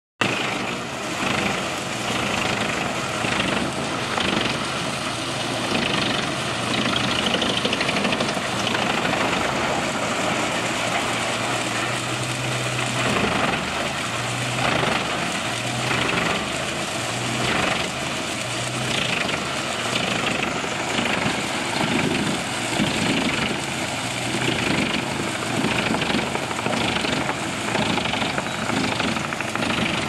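Large crane-fed industrial wood chipper running under load as logs are fed in: a steady engine drone with irregular knocks and rattling from the wood being chipped.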